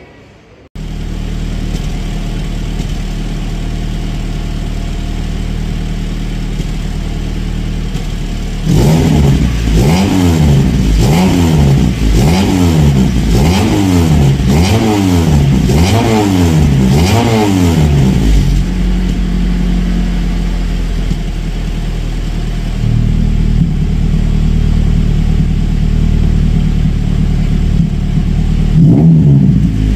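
Honda car's exhaust, fitted with a home-made manual valvetronic valve built from a used throttle body, heard at the tailpipe. The engine idles, then is blipped in a quick run of about nine revs, one a second, a third of the way in. It settles back to idle and revs again near the end.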